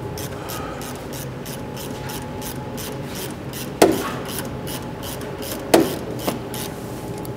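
Ratchet wrench clicking in quick strokes, about three or four clicks a second, as the nut holding a wiper arm is undone. Two sharp metal knocks land about four and six seconds in.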